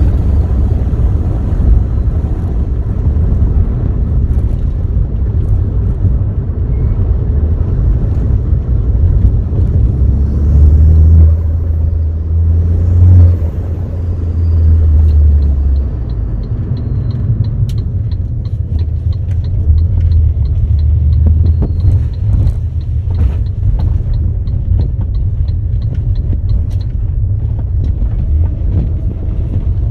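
Engine and road rumble inside a moving Saab car's cabin, heavy and low, swelling louder for a few seconds about a third of the way in. From a little past halfway a light, regular ticking runs for about ten seconds, about three ticks a second.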